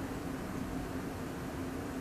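Room tone between sentences: a steady, even hiss with a faint low hum underneath.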